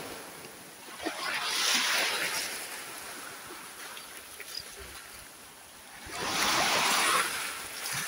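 Small sea waves breaking on a sandy shore. The first surge of foam comes about a second in and the second about six seconds in; each is a hiss that swells and fades as the water washes up the sand.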